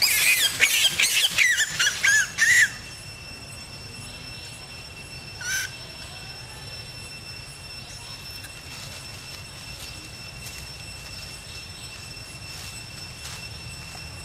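Long-tailed macaque screaming: a rapid string of shrill, wavering squeals for about two and a half seconds, then one short squeal a few seconds later.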